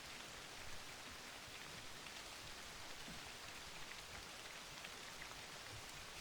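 Faint, steady rain falling, an even hiss with scattered light drop ticks.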